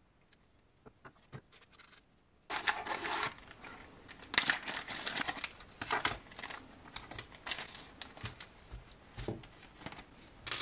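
A few faint snips of cutting pliers on plastic print supports, then, from about two and a half seconds in, plastic and foil anti-static bags crinkling and rustling as they are handled and opened, with a louder crinkle near the end.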